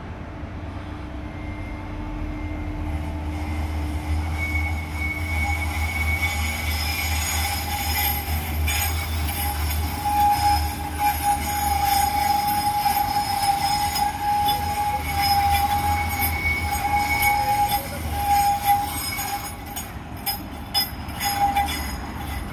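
Parramatta Light Rail tram passing slowly on a curve: a low rumble of the running tram, with a steady high squeal from the wheels on the curved track that wavers in pitch through most of the pass.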